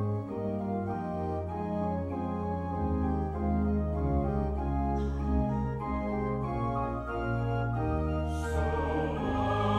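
Organ playing an interlude alone, moving chords over long-held low pedal notes. Near the end the mixed choir comes back in singing.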